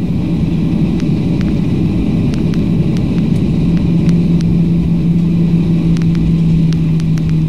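Cabin noise inside a Boeing 737 airliner taxiing: a steady low rumble of engines and rolling wheels with a steady hum that grows stronger about halfway through, and faint clicks now and then.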